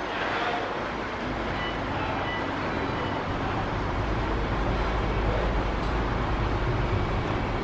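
Airbus A320-family jet airliner landing: engine noise over a steady rush, with a deep rumble that swells from about three seconds in as it touches down and rolls out on the wet runway.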